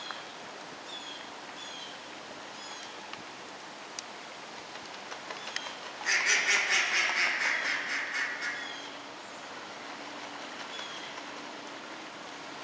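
A burst of rapid, harsh animal calls lasting about two and a half seconds near the middle. Under it run a steady high insect trill and a short bird chirp repeated about once a second.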